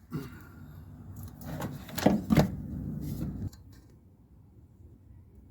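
Rustling handling noise with two sharp knocks about two seconds in, stopping suddenly after about three and a half seconds.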